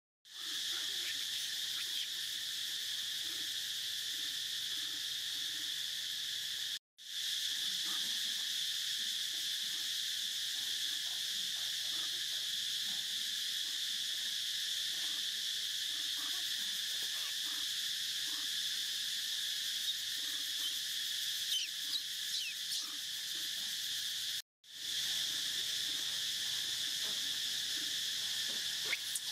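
Steady chorus of insects buzzing in several high bands, cutting out to silence for a moment twice, with a few short high chirps about three-quarters of the way through.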